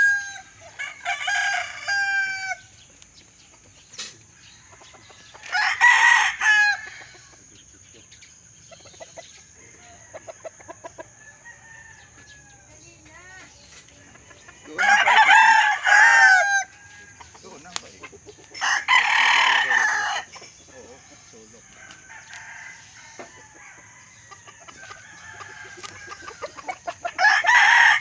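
Several gamecocks (roosters) crowing one after another, about five crows of a second or two each, with quieter clucks in between.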